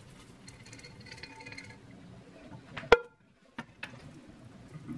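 Stainless steel colander of drained ground beef handled in a stainless sink: light metallic rattling, then one sharp knock against the sink about three seconds in, followed by two lighter clicks.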